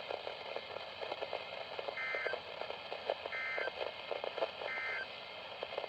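Three short warbling data bursts of an Emergency Alert System (SAME) end-of-message signal, about a second and a half apart, marking the close of the tornado warning. They sound over a steady hiss of radio static with crackles.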